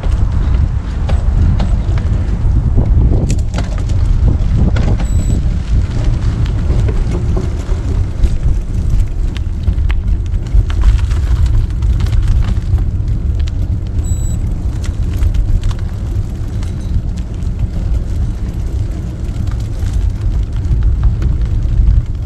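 Steady low rumble of a vehicle on the move, with road and wind noise.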